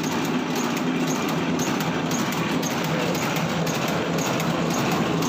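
Home-built bakso meatball-forming machine running empty: its motor and gear-driven cutter blades sliding back and forth make a steady, loud mechanical noise with a light tick about twice a second. Running without dough is what makes it this noisy ("agak berisik").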